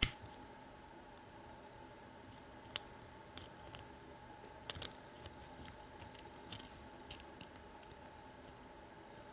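Single-pin picking an American 748 six-pin padlock: the steel pick hook and tensioner clicking against the pins inside the lock, a sharp click at the start and then scattered light clicks in small clusters.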